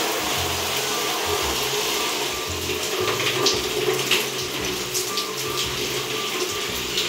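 Shower water running steadily from an overhead showerhead and splashing down, with background music under it.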